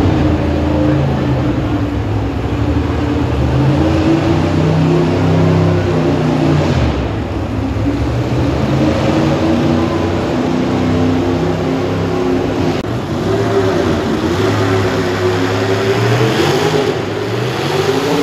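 Pulling tractor's engine running hard at high revs, straining as it drags a weight-transfer sled. The pitch wavers, dips briefly about seven seconds in and climbs again near the end.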